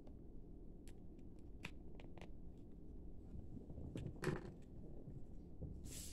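Faint handling sounds of a plastic action figure on its stand on a wooden tabletop: scattered light clicks and taps, a soft knock about four seconds in, and a brief rustle near the end.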